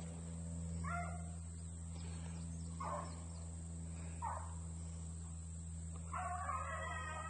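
Young rabbit dogs barking while running a rabbit: three short, separate yelps about a second and a half apart, then a longer spell of barking near the end.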